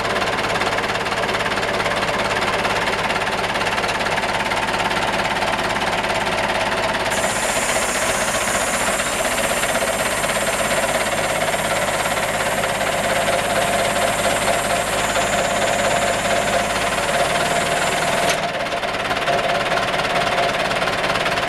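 Loader truck's engine running steadily. A high hiss joins about seven seconds in and cuts off suddenly near the end.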